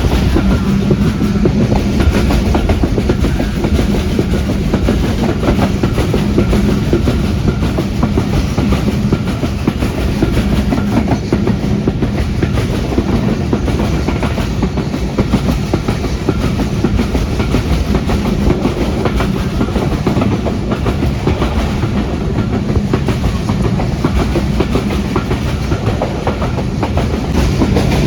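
Passenger train running on the rails: a steady, loud rumble with wheels clattering over rail joints.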